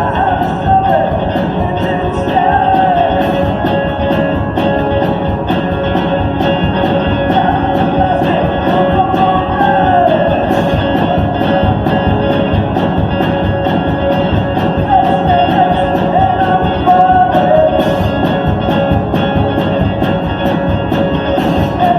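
Live song with guitar accompaniment and a voice singing in phrases with short gaps between them.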